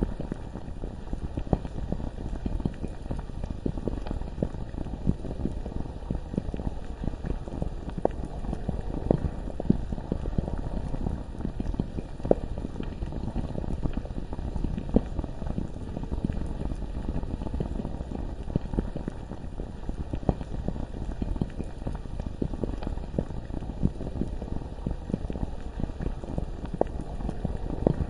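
Thick, bubbling lava ambience: a continuous low bubbling with a steady stream of small pops and blips, the kind of sound a viscous liquid makes as gas bursts through it.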